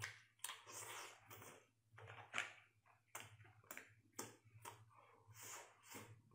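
Faint, close mouth sounds of a person chewing and sucking on lobster meat: irregular wet lip smacks and small clicks.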